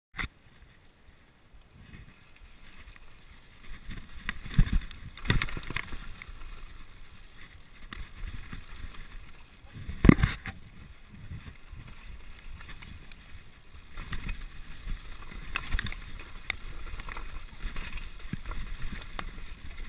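Helmet-camera sound of a downhill mountain bike riding a dirt and gravel forest trail: tyre rumble over the ground with knocks and rattles from the bike over bumps. The rumble builds after the first couple of seconds, and the loudest knock comes about ten seconds in.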